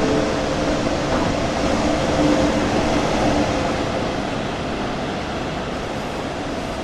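DB Class 146 electric locomotive hauling double-deck coaches, running with a steady electric whine that fades out about halfway through, over rolling noise that slowly dies away.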